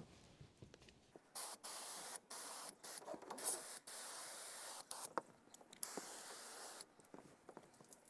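Water spraying from a garden hose nozzle, rinsing dirt off the RV roof. It starts about a second in and goes in a run of bursts with short breaks, then fades near the end.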